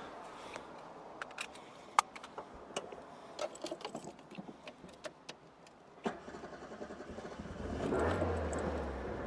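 Keys jangling and clicking at the ignition of an Alfa Romeo Spider 1300, then about six seconds in its twin-cam four-cylinder engine is started, catching with a rise in level and running steadily near the end.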